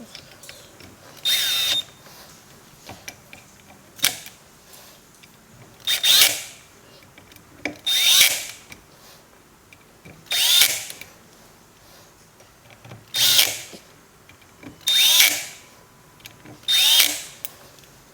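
Power drill driving steering wheel bolts in: about eight short bursts, each about half a second and roughly two seconds apart, the motor's whine rising and falling with each one as the bolts are tightened one by one in a star pattern.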